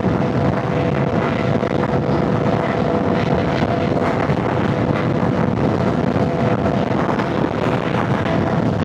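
Sport bike engine running at a steady cruise with heavy wind rush over the rider's microphone, a faint steady engine drone under the wind noise.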